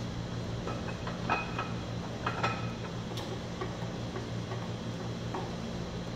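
Scattered light metallic clicks and taps as a bare V8 engine block is wiped down and handled, over a steady low hum.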